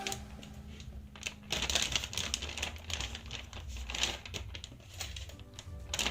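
Packaging crinkling and rustling as it is handled, in irregular bursts with louder spells about two and four seconds in.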